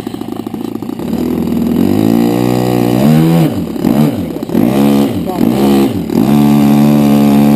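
Radio-controlled model airplane engine run up on the ground: it idles, climbs in pitch, is blipped up and down about four times in quick succession, then holds steady at high throttle. It runs smoothly and cleanly, a sign of a well-tuned engine.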